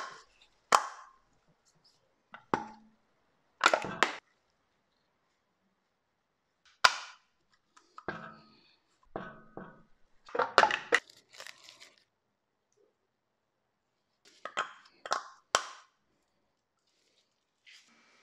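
Plastic Mercedes-Benz wheel center cap being pressed into an alloy wheel's center bore: a series of sharp clicks and snaps, some in quick clusters, as its clips are pushed in and seat.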